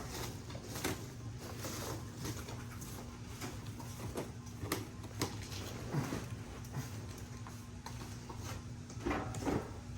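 Cardboard box and packing being handled during an unboxing: scattered scrapes, rustles and light knocks, with a few sharper knocks near the end, over a steady low hum.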